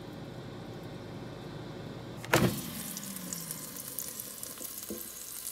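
Air fryer fan running with a steady hum, then a sharp clunk about two seconds in. After the clunk the fan winds down with a falling tone, and the freshly air-fried shumai sizzle and crackle faintly in the basket.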